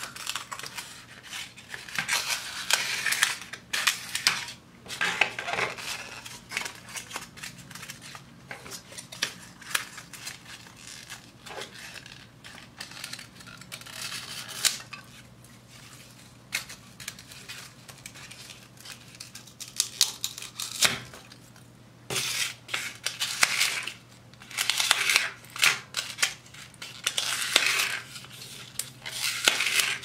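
A utility knife blade slicing through thermocol (polystyrene foam) plates, in short runs of cutting strokes with brief pauses between. A faint steady low hum runs underneath.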